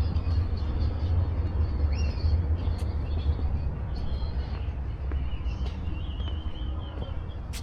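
Outdoor street ambience: a steady low rumble, with a few faint high chirps and one sharp click near the end.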